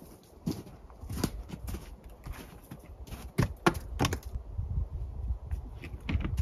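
Logs of dry deadwood knocking and thudding as they are handled and loaded onto an SUV, with irregular sharp knocks and a quick cluster of them a little past the middle.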